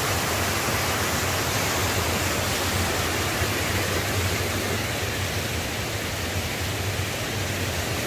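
Mountain stream rushing over rocks and small cascades: a steady, even rush of water.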